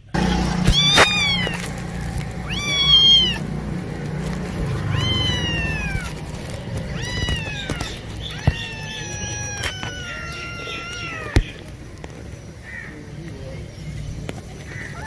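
A cat meowing about six times in a row, each meow rising then falling in pitch, the later ones drawn out longer, then going quiet after about eleven seconds. A sharp click sounds near the end of the meows.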